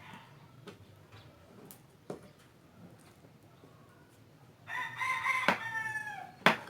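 A rooster crowing: one long call that falls in pitch at the end, starting about two-thirds of the way in, with a sharp click just after it.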